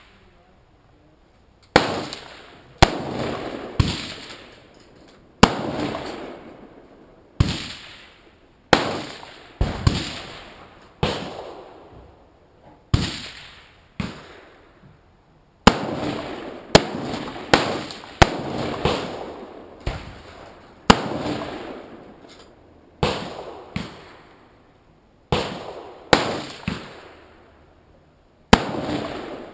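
AR-15 rifle firing military 5.56 mm rounds semi-automatically: about twenty loud shots at uneven intervals, some in quick pairs, each followed by a fading echo.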